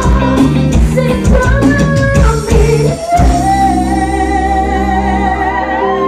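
Forró band music with singing and a drum beat; about three seconds in the drums stop and held notes carry on.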